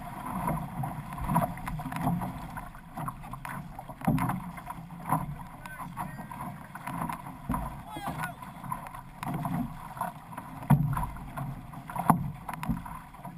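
Water splashing and sloshing against an outrigger canoe's hull and ama as it is paddled through chop, with irregular loud surges of spray.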